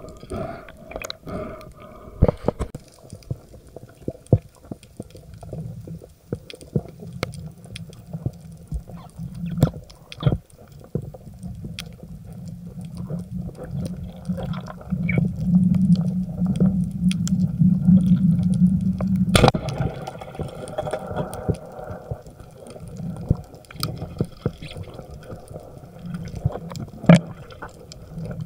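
Muffled underwater sound heard through a camera housing: a low rumble of moving water with many scattered sharp clicks. The rumble swells for a few seconds past the middle.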